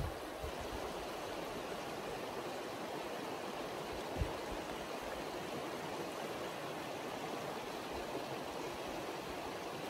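Shallow mountain river rushing steadily over a rocky bed, a constant even wash of water. A brief low thump sounds about four seconds in.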